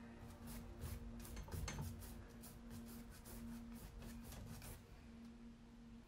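A paintbrush scrubbing paint on, a quick run of short rubbing strokes that stop about five seconds in, over a faint steady low hum.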